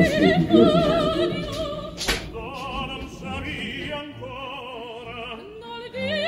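Opera music: a singer with wide vibrato over classical accompaniment, with a single sharp click about two seconds in.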